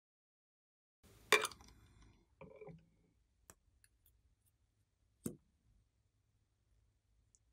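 Handling of small plastic items: a sharp click about a second in followed by a short rustle and a brief squeak, then a light click and a duller knock about five seconds in, as a plastic lip gloss tube is handled and its applicator wand pulled out.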